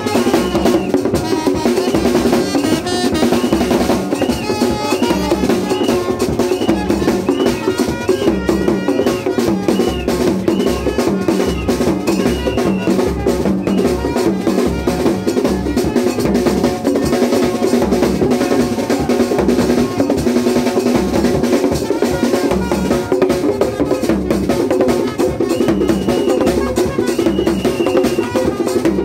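Loud music with a steady drum beat, running without a break.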